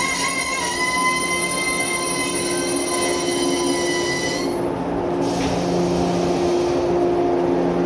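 JNR 115-series electric train's wheels and brakes squealing in a loud, high-pitched ringing as it slows along the platform, the squeal cutting off about four and a half seconds in as the train comes to a stop. A steady low hum from the standing train remains.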